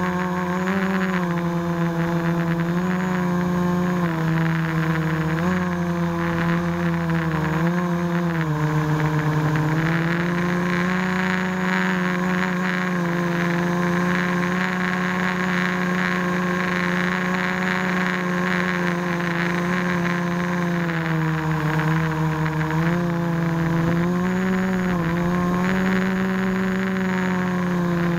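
Quadcopter's electric motors and propellers running in flight, a steady multi-toned whine that dips and rises in pitch with the throttle, with a clear dip about eight seconds in and wavering again near the end.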